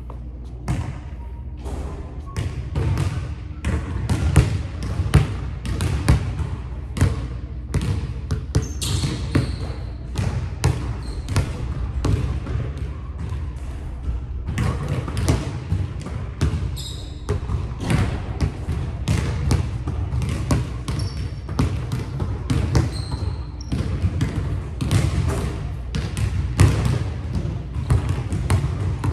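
A basketball dribbled on a hardwood gym floor: repeated sharp bounces, about two a second, with a few short sneaker squeaks on the hardwood.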